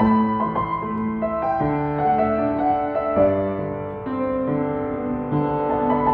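Piano playing a pop ballad: a melody line over held chords.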